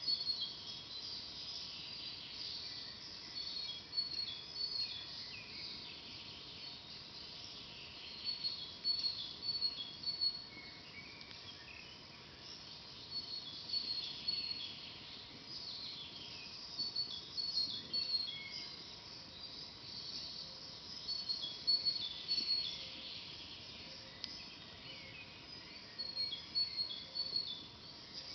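Songbirds singing throughout, in overlapping warbled phrases with rows of short, high, repeated chirps, over a faint steady background.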